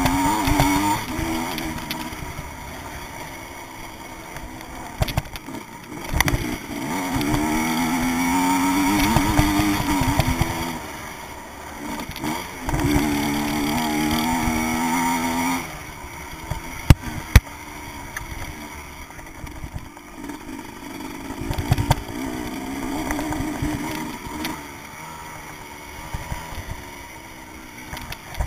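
Vintage motocross motorcycle's engine, recorded on board, revving hard in spells and easing off between them as the bike is ridden round the track. A couple of sharp knocks come a little past the middle.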